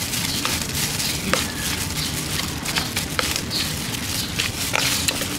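A metal spoon tossing and mixing a tripe and banana flower salad in a plastic bowl, with irregular clicks and scraping.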